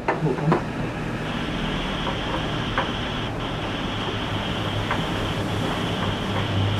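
Arc welding: a steady hiss with a few faint clicks begins about a second in, over a low steady electrical hum.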